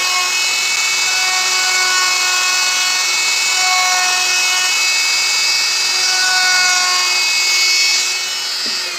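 Handheld plunge router running at speed, its bit cutting grooves into a fibreboard panel: a steady high-pitched whine over a dense cutting hiss. Near the end the sound eases a little as the router is lifted clear of the board.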